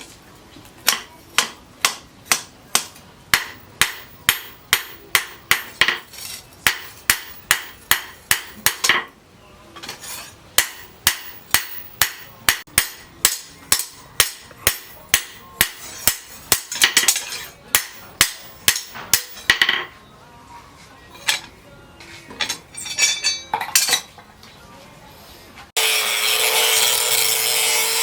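Hammer blows on steel at a forge anvil, a steady rhythm of about two to three ringing strikes a second with a short break about a third of the way in and looser strikes later. Near the end it cuts suddenly to a steady power-tool noise with a low hum.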